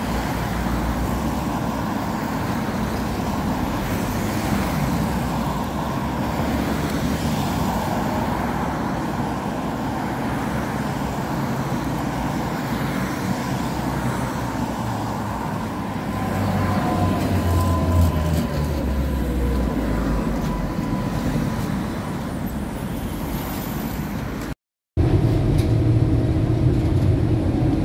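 City road traffic: cars passing, with a Tatra tram approaching along the street track and a whine that falls in pitch between about 16 and 21 seconds in. Near the end, after a brief cut, the steady low rumble of riding inside a Tatra tram.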